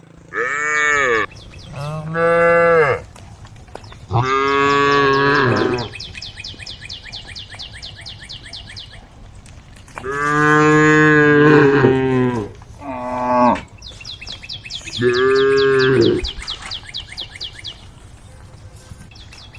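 Cows mooing, calling to the herd: six loud, drawn-out moos of one to two seconds each, some falling in pitch at the end, with pauses of several seconds between them.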